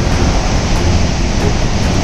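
Floodwater rushing out of a dam's open spillway gates: a loud, steady rush of water with a deep rumble underneath.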